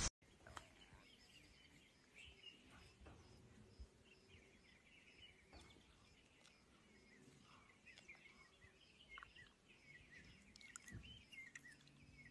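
Very quiet outdoor ambience with faint, scattered bird chirps and a few soft clicks.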